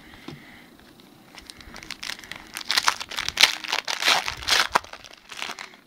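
Foil wrapper of a Yu-Gi-Oh booster pack crinkling in the hands as it is torn open. A rapid run of loud crackles starts about two seconds in, after a few faint clicks of cards being handled.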